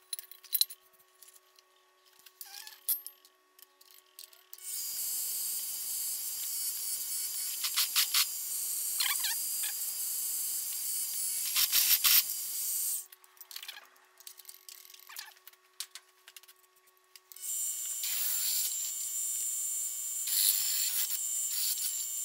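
A bench mill-drill's motor running steadily while a twist drill cuts through the wall of a steel box-section tube. The cutting comes as a loud, high-pitched hissing squeal in two spells of several seconds each. Between the spells there are scattered light clicks and taps.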